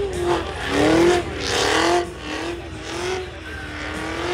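Car engine revved high in a burnout, its pitch swinging up and down as the throttle is worked, with tyre noise. It is loudest from about one to two seconds in.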